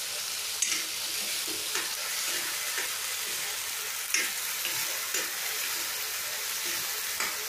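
Onion and garlic paste frying gently on low heat in oil in a metal kadhai, with a steady sizzle, while a metal spoon stirs and scrapes it, clinking against the pan a few times.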